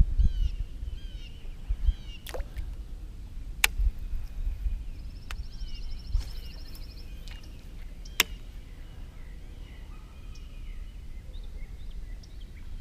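Outdoor ambience of birds chirping in short repeated calls, with a high buzzy trill in the middle, over a low rumble of wind on the microphone. Four sharp clicks sound in the first two-thirds.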